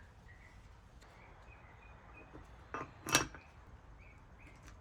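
Two light metallic clicks about three seconds in, the second a sharp ringing clink, as small metal turbocharger parts are handled during assembly. Faint bird chirps in the background.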